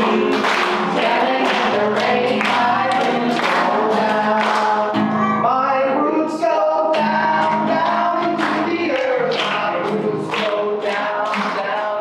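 Background music: a song with singing voices over a steady beat.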